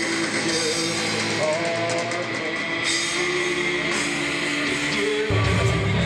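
Heavy rock music: distorted electric guitars, bass and drums with a singing voice, the low end growing heavier about five seconds in.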